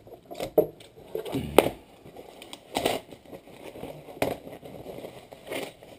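Irregular handling noise of unpacking and setting up a stereo: a scatter of knocks, clicks, scrapes and packaging crackles, with a few low thuds.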